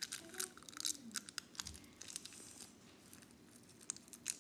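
Crinkling and crackling close to the microphone: quick, irregular clicks, densest in the first second and a half and again near the end.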